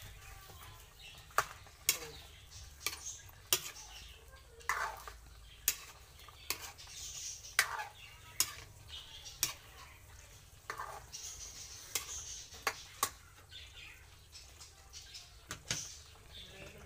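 A metal ladle stirring chicken stew in a metal wok, clinking and scraping against the pan many times at an irregular pace.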